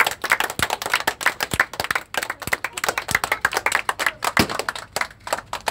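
A small group of people clapping their hands, many fast, overlapping claps.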